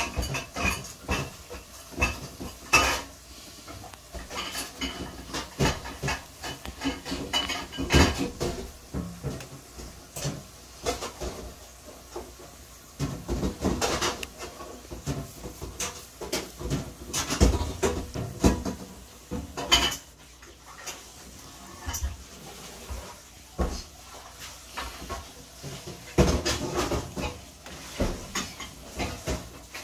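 Irregular clicks, knocks and clattering, with louder clusters several seconds apart and no steady sound underneath.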